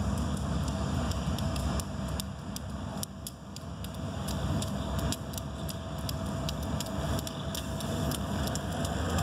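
Diesel locomotives of a freight train approaching, their engines making a steady low rumble that grows louder over the last several seconds.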